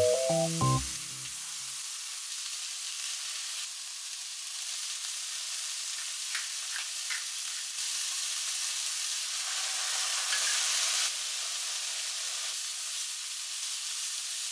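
Sliced mushrooms sizzling in oil in a hot nonstick wok while being stirred with a silicone spatula; the sizzling grows louder about ten seconds in. A few short musical notes sound right at the start.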